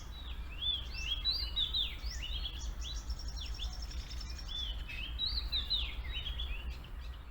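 Birds chirping and twittering continuously in many short, quick notes that sweep up and down, over a low steady hum.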